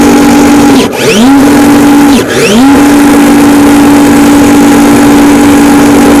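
Arrma Felony RC car's brushless motor and drivetrain run at full throttle with the car held off the ground, the wheels spinning free: a very loud, steady whine. It drops out briefly about one and two seconds in, each time spooling back up with a rising pitch, then holds steady.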